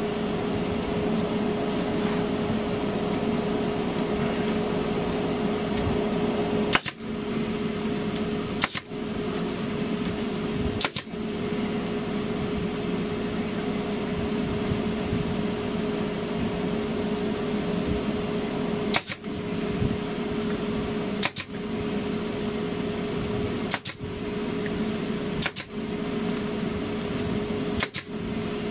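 Arrow PT50 pneumatic air stapler firing staples through foil bubble insulation into wooden rafters: eight sharp shots, three close together in the first half and five more in the second half. A steady machine hum runs underneath.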